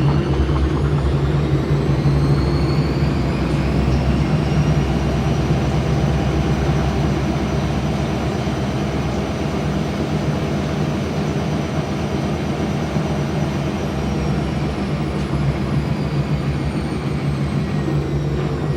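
Gorenje WA50060 washing machine running loudly: a steady low drone with a whine that rises in pitch over the first few seconds, holds, and falls away near the end. This is plausibly the strange loud noise that follows the pump draining, whose cause the owner has not found.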